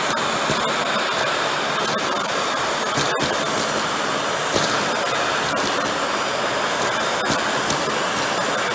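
Hoover WindTunnel canister vacuum running steadily, its motor's rushing noise mixed with air drawn into the open end of the hose during a suction test.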